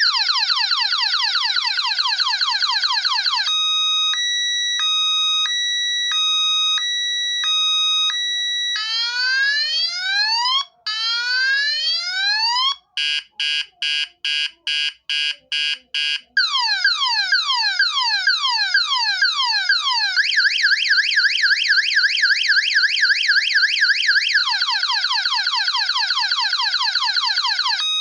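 Electronic multi-tone siren blaring from the small horn speaker of a homemade PIR motion-sensor alarm, sounding on test of how long its timer keeps it on. It cycles through its patterns: fast repeated sweeps, a two-tone hi-lo from about 3 s in, slower rising whoops near 9 s, a run of quick beeps about two a second, then fast sweeps again from about 16 s.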